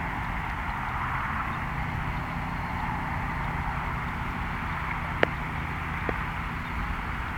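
The 5.2-litre V8 of a 1993 Jeep Grand Cherokee running steadily as it drives through sand. A sharp click about five seconds in is the loudest moment, and a fainter click follows a second later.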